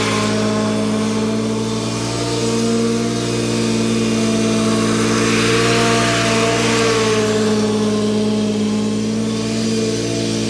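Mower engine running steadily at a constant speed, its pitch wavering only slightly.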